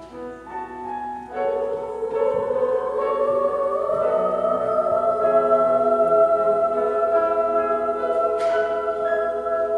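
Girls' choir singing with piano accompaniment, the voices rising and settling into a long held final chord.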